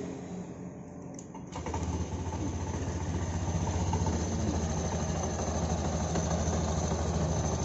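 Honda Genio scooter's single-cylinder engine starting about a second and a half in, then idling steadily with a jingling and clacking rattle from the CVT. The mechanic suspects a loose ring on the clutch shoe assembly for the jingling and a worn, stretched chain for the clacking.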